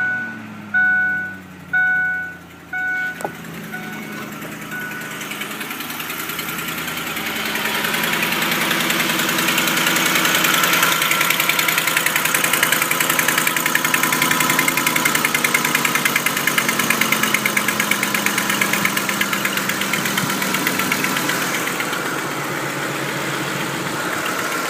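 Ford SuperCab pickup's engine just after a cold start, its revs settling down while a warning chime sounds about once a second for the first few seconds. A rapid ticking then builds up over the idle and holds steady: a cold-start tick that the owner says disappears as the engine warms.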